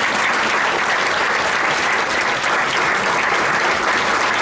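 Audience of seated guests applauding, a steady dense clapping.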